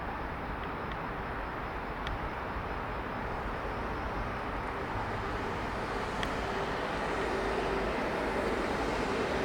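Seoul Metro Line 4 Dawonsys-built electric train running along the line, a steady rumble of running noise. About six seconds in, a steady mid-pitched tone rises out of it and gets louder.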